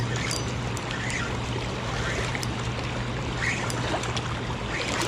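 Fast river current below a dam rushing steadily over rocks, with a steady low hum underneath.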